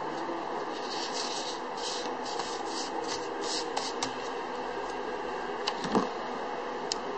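Fournier EPT playing cards sliding and scraping as they are spread out by hand over felt, in a run of short scratchy strokes, then a few light clicks and a soft knock about six seconds in, over a steady background hiss.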